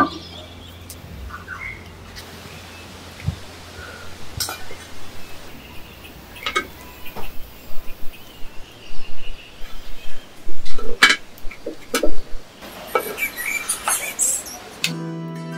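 Knocks and clinks of a clay pan and bamboo spatula as papadams are dry-roasted and turned in the pan over a wood fire, busiest in the last third, with birds chirping faintly in the background. Music comes in near the end.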